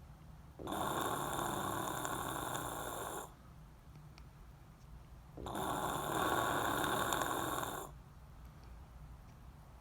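A person snoring heavily in deep sleep: two long snores of about two and a half seconds each, with quieter breathing between them.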